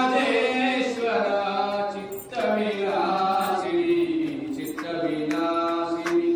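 A voice chanting Hindu puja mantras in long, drawn-out phrases, with a short break about every two seconds.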